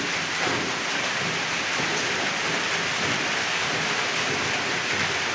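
Steady rain, an even hiss with no breaks.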